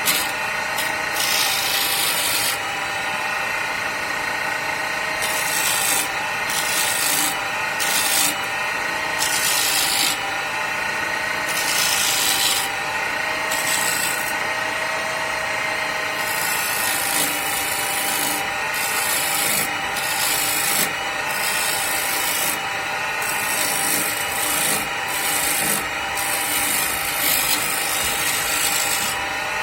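Homemade wood lathe running with a steady motor hum while a hand-held turning chisel cuts into the spinning wood blank, the scraping of the cut coming and going in strokes every second or two.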